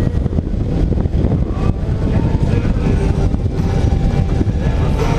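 Motorcycle riding at cruising speed: a steady low rumble of engine and road noise mixed with wind buffeting the microphone.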